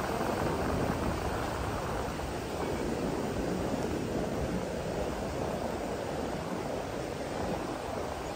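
Steady rushing of ocean surf, an even wash of noise with no separate breaks.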